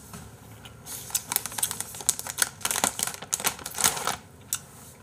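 A quick, irregular run of light clicks and taps, starting about a second in and stopping shortly before the end.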